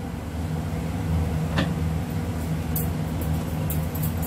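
Steady low mechanical hum in the room, with a faint click about a second and a half in.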